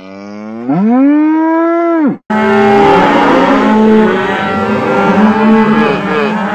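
One long call that rises in pitch and holds for about two seconds, then a cartoon crowd cheering and whooping with many voices at once.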